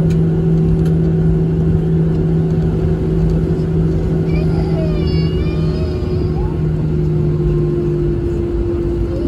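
Cabin noise inside a Boeing 737-700 with its CFM56-7B engines at idle during taxi: a steady drone with a constant low hum and rumble, with no change in engine power.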